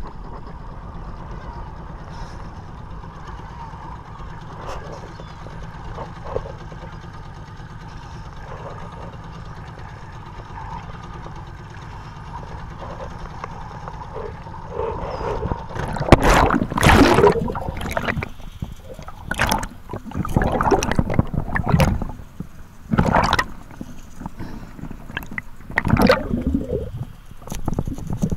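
A boat's engine idling as a steady low rumble, with water lapping. From about sixteen seconds in, loud irregular splashing and gurgling of water close to the microphone.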